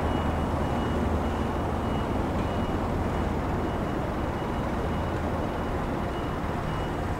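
A motor vehicle's engine running steadily with a low hum, and a high electronic beep repeating at even intervals over it.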